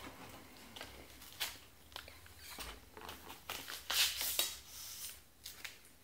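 Packaging being unwrapped by hand: irregular rustling and crinkling with scattered small clicks, the loudest rustle about four seconds in.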